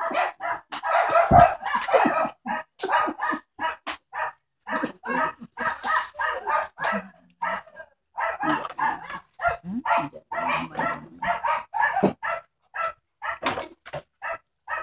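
A small dog yapping in quick, repeated high-pitched barks, about three or four a second, with brief gaps.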